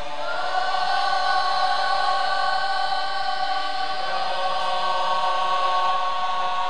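Mixed choir of boys and girls singing long held chords, with the harmony changing about four seconds in.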